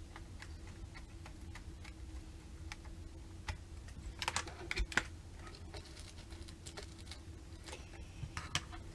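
Scattered light clicks and taps from handling a laptop's plastic screen parts and small screws, thickest around the middle.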